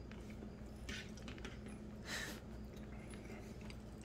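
Faint sounds of a man eating a loaded baked potato: soft chewing and light clicks of a fork on the plate, with a short breathy hiss about two seconds in, over a steady low hum.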